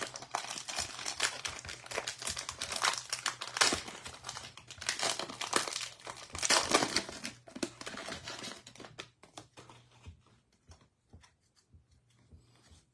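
Plastic wrapper of a trading-card value pack crinkling and tearing as it is ripped open, a dense crackle for about nine seconds. After that only sparse, faint rustles and clicks as the stack of cards is handled.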